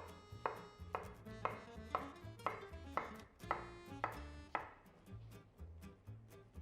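Knife chopping food on a cutting board: sharp, even cuts about two a second that stop about two-thirds of the way through. Soft background music plays throughout.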